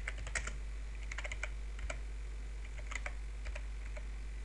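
Typing on a computer keyboard: keystrokes in short, irregular runs, over a steady low hum.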